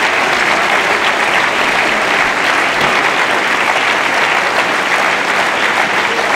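Audience applauding steadily at the end of a talk: many hands clapping at once.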